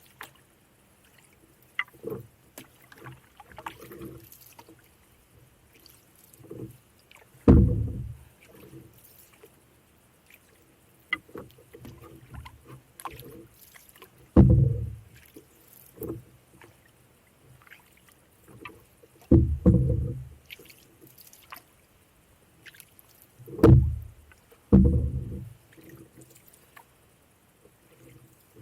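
Canoe being paddled: light water noise from the strokes, broken by a dull thump every few seconds, with the thumps spaced irregularly.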